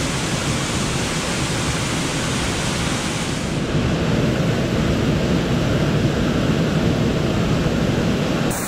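Waterfall pouring into a rock pool: a steady rushing of falling water.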